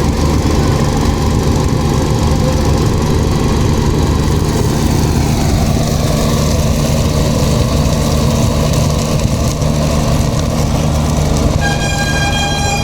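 An engine running steadily with a low drone, its tone shifting about five seconds in. A horn starts sounding and is held about a second before the end.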